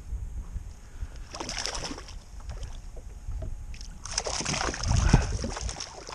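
Two hooked mackerel splashing at the water's surface beside a kayak as they are lifted on a feather rig, in two bursts, one about a second in and a louder one about four seconds in. Wind rumbles on the microphone.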